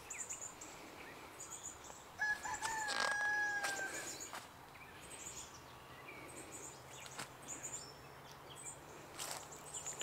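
A rooster crows once, one drawn-out call of just under two seconds starting about two seconds in, over faint, high chirping of small birds.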